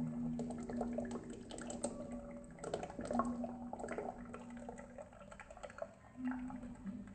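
Bubbly liquid dripping and trickling, with many small crackling pops of bursting bubbles.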